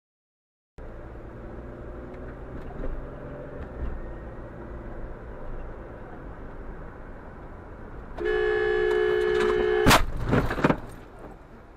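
Steady road noise inside a moving car, then a car horn blaring for about two seconds. It is cut off by the loud crash of a collision, several bangs and crunches within about a second.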